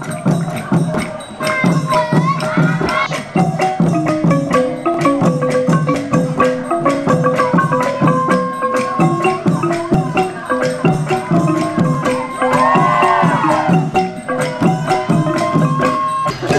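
Thai long-drum (klong yao) ensemble playing a brisk, steady beat with small cymbals jingling, and a wavering held melody line carried over the drums.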